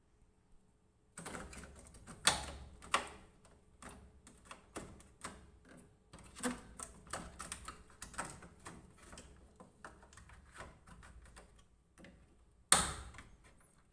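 Hands fitting a replacement water level sensor in a top-load washing machine: irregular plastic clicks, taps and rattles starting about a second in, with one loud click near the end as the part locks into place.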